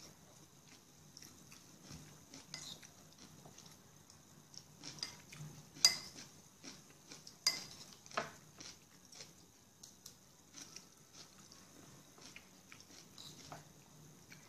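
Close-up eating: chewing and crunching on crunchy fermented cabbage, with scattered sharp clicks of cutlery against dishes, the loudest about 6, 7.5 and 8 seconds in.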